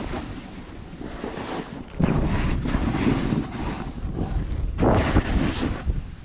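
Wind rushing over the microphone while skiing downhill, with skis hissing and scraping over the snow; the noise swells louder about two seconds in and again near five seconds, as in turns.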